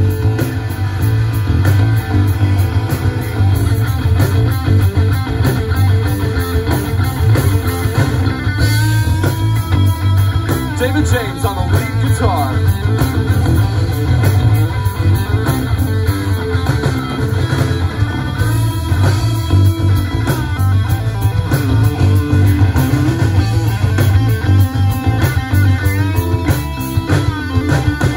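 Live rock band playing an instrumental passage on electric guitar, bass guitar and drum kit. From about nine seconds in, high guitar notes bend and waver in pitch over a heavy bass and steady drums.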